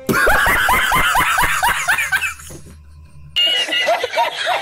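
A man laughing hard in quick, repeated high-pitched peals, stopping about two seconds in; after a short pause another man's laughter starts up.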